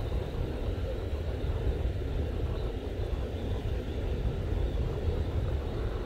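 Steady outdoor rumble, like wind buffeting the microphone, with a lighter hiss over it.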